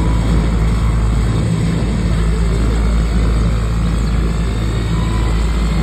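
Three motorcycle engines running together inside a steel-mesh Globe of Death, a loud, steady drone with no breaks.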